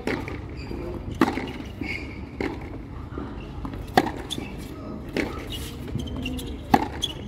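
Tennis rally on a hard court: a ball struck hard by rackets and bouncing, with a sharp pop about every second and a half. The loudest strikes come about four seconds in and near the end, as the near player hits forehands.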